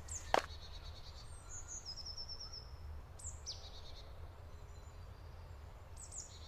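Forest ambience: small birds chirping, with a quick trill of repeated high notes about two seconds in and a falling chirp a little later, over a steady low rumble. A single crunching step on gravel sounds just after the start.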